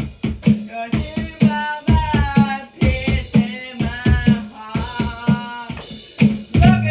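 Music with a steady, fast drum beat under a pitched melody line.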